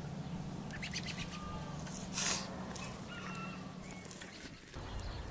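Village outdoor ambience: a few short calls of birds, such as domestic fowl, over a low steady hum that fades out about halfway through, with a brief rush of noise a little after two seconds in.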